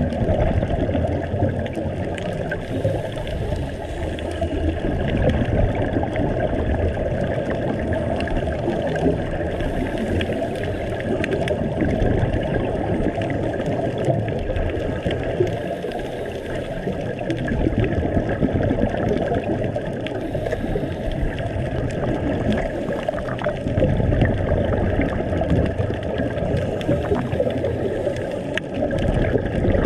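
Underwater sound from a scuba diver's camera: exhaled bubbles gurgling and the regulator breathing, swelling every five to seven seconds with each breath.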